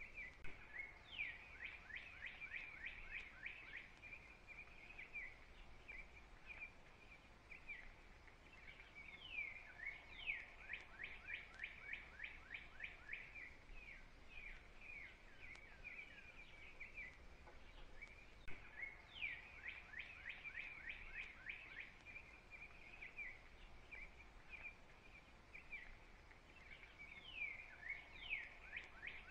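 Faint songbird singing: a quick series of rapid down-slurred notes repeats about every nine seconds, with softer steady chirping in between.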